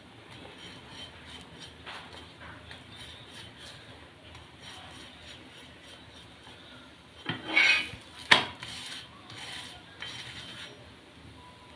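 Flat spatula scraping and pressing a paratha on an iron tawa: light, repeated scrapes, then a loud scrape about seven seconds in, followed quickly by a sharp clack of the spatula against the pan.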